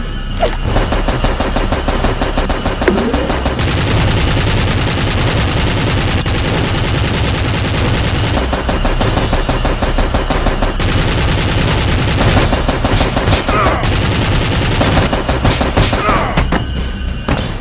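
Continuous rapid automatic gunfire: a machine-gun sound of fast, overlapping shots, cutting off sharply at the end.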